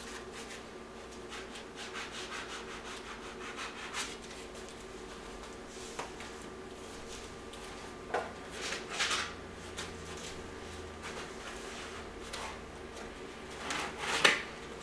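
Foam packaging inserts and the printer's box being handled: scattered rubbing and scraping, with a couple of small clicks. The louder scrapes come about eight seconds in and near the end, over a faint steady hum.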